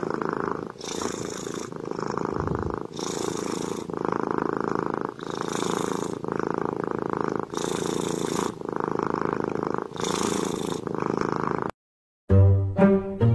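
Sleeping dog snoring in slow, regular breaths, one every two to three seconds, each a long rasp ending in a short hiss. It cuts off about twelve seconds in, and bowed-string music follows.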